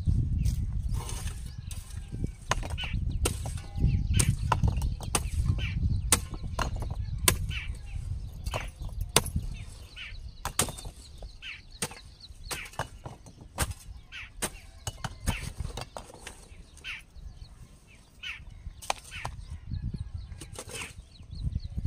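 A digging tool striking and cutting into earth in irregular blows while a foundation trench is dug by hand, with short bird chirps in between.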